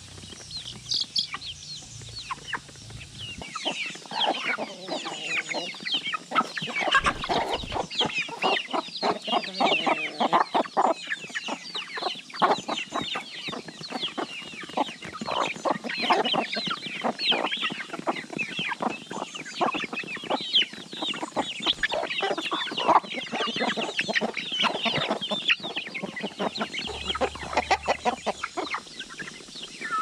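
A flock of chickens feeding: hens clucking over a dense chatter of chicks peeping, growing busier a few seconds in.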